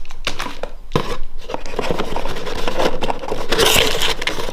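Equipment being handled and shifted about: continuous scraping and rubbing with scattered clicks and knocks.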